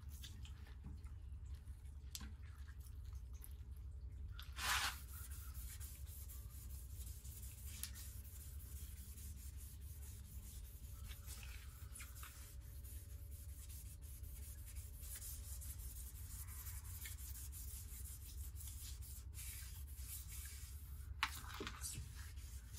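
Wet/dry sandpaper rubbing by hand over a wet boat hull finish, a faint, steady scratchy swish as heavy oxidation is sanded off, over a steady low hum. A brief louder swish comes about five seconds in and a sharp tap near the end.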